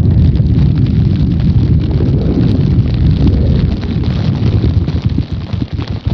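A performer's vocal imitation of rolling thunder: a loud, low rumble with scattered crackles, dying away over the last couple of seconds.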